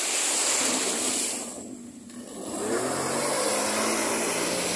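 Sea-Doo jet ski engine revving as the craft pulls away through the water, with the rush of its spray wake. The sound dips about two seconds in, then the engine note climbs and holds as it accelerates.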